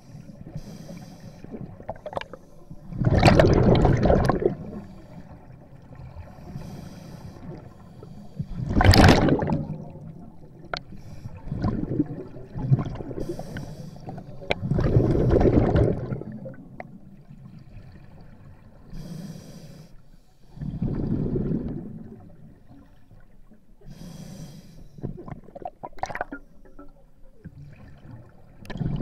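Scuba diver breathing through a regulator: a faint hiss on each inhale, then a loud rush of exhaled bubbles, about five breaths at a slow steady pace.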